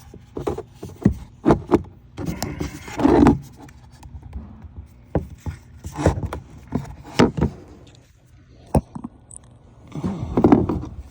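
Irregular knocks, clicks and scrapes of equipment being handled, with a few longer rustling stretches, about three seconds in and near the end.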